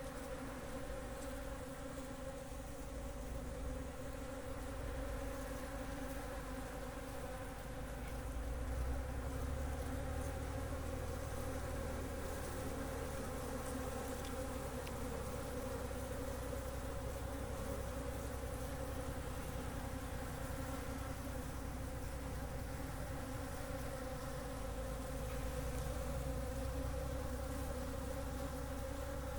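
Steady buzzing hum of many flying insects, holding an even pitch throughout, with a low rumble underneath.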